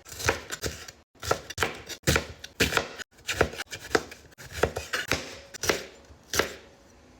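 Knife chopping vegetables on a cutting board, in irregular cuts about two or three a second, stopping shortly before the end.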